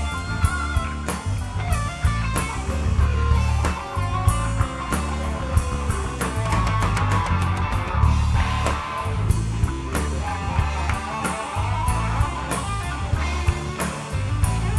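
Live blues band playing an instrumental passage: electric guitar lead over bass guitar and a drum kit with frequent cymbal and snare hits.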